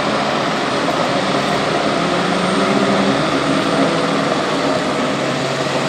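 A loud, steady engine drone.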